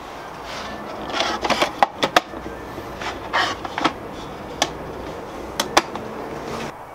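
Hinged plywood panels of a camp kitchen box being handled: a worktop leaf pulled out and a support panel swung open beneath it, giving a series of sharp wooden knocks and clicks with short scraping between them.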